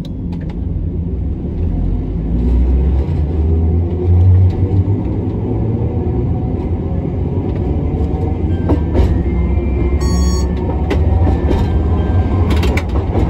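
Hiroshima Electric Railway 1900-series tram (ex-Kyoto City tram) running along the line: a steady low rumble of wheels and running gear, with scattered clicks and knocks.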